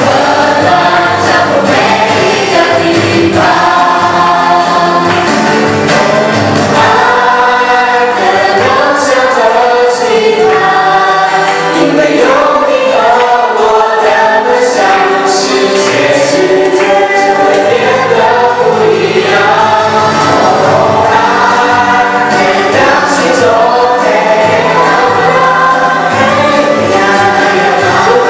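A mixed vocal group of young men and women singing a Christian song together through handheld microphones, over amplified musical accompaniment.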